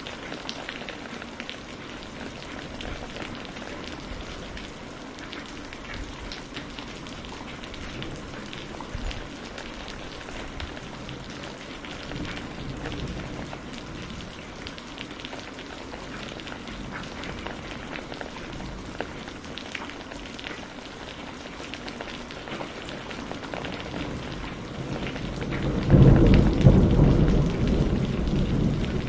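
Steady rain falling, with patters of drops. Near the end a sudden loud, deep thunderclap breaks in and rumbles on.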